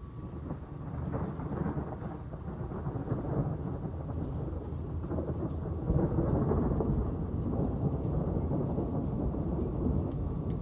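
Rolling thunder rumbling through steady rain, building about a second in and swelling loudest around six seconds in.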